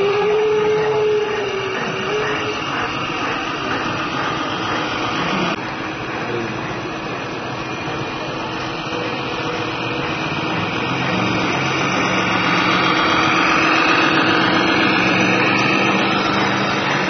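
Radio-controlled scale MAN tractor unit pulling a loaded low trailer: its electric drive motor and gearbox whine steadily, with the whine rising in pitch and growing louder in the last few seconds.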